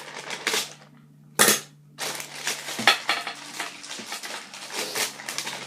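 Scooter grips' packaging being handled and opened: a few sharp snaps, the loudest about a second and a half in, then steady rustling and crackling with more clicks.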